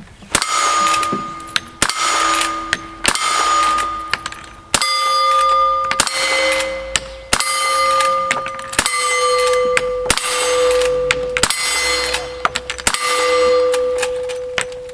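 A string of about ten gunshots, roughly one every second and a half. Each shot is followed by the clear ring of a struck steel target, which hangs on until the next shot.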